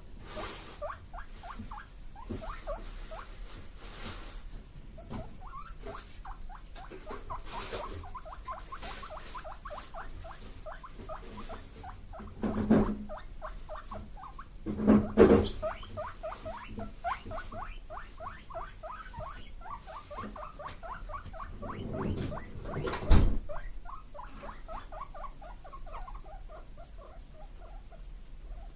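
Guinea pigs wheeking ("puipui"), a long unbroken run of rapid short squeaks, begging for vegetables as the fridge is opened. A few loud knocks break in partway through and near the end.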